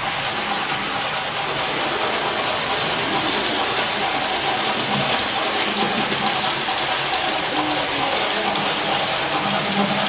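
Märklin HO model train running past on the layout: a steady rolling rattle of small metal wheels on the track, getting slightly louder a few seconds in.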